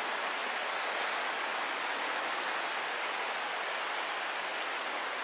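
Steady rush of a creek in flood, its fast, high water running hard over its bed.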